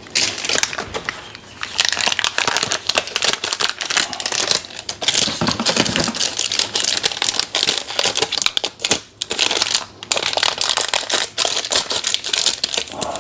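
Plastic wrapping of a printer ink cartridge being crinkled and crumpled in the hands as it is pulled off, a dense crackling with many sharp little clicks.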